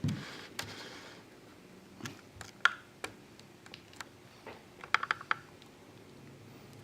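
Small, sharp clicks and ticks at uneven intervals, the loudest about two and a half seconds in and a quick cluster around five seconds: a pry tool working between a Samsung Galaxy S5's front glass and frame as the screen adhesive separates.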